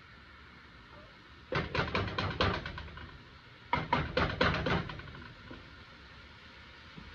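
Silicone spatula stirring chopped onions in a stainless steel frying pan: two bursts of quick scraping strokes against the pan, over a faint steady sizzle of onions in oil.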